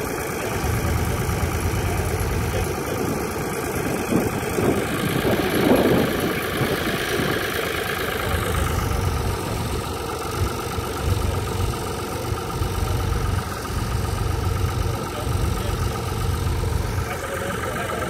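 Blue Ford tractor's engine running steadily at low revs while it pulls a mounted plough through the soil, with a short louder rush of noise about six seconds in.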